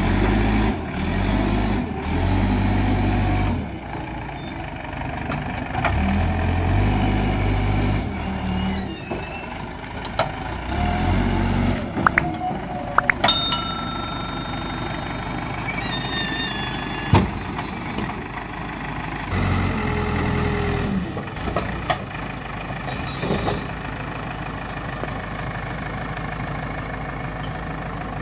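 JCB backhoe loader's diesel engine working, revving up in repeated bursts of a few seconds under hydraulic load and dropping back between them. There are sharp metal knocks near the middle and once more later, and a brief high-pitched tone just after the middle.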